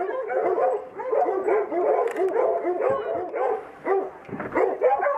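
A pack of hounds baying and yelping together: many overlapping calls with no let-up.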